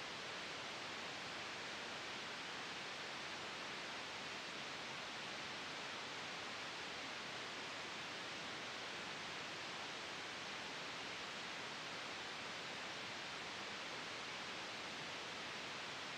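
A faint, steady, even hiss that does not change, with nothing else in it.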